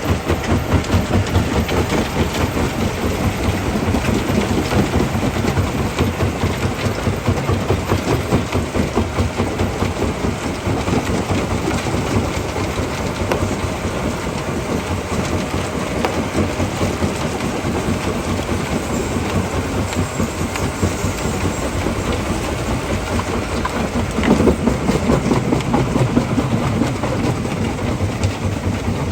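Stone crushing plant running, a steady dense clatter of rock passing through the machinery over the machines' low running noise. It grows louder about 24 seconds in.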